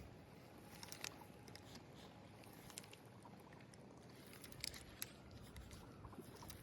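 Near silence: faint outdoor quiet with a few soft, scattered clicks.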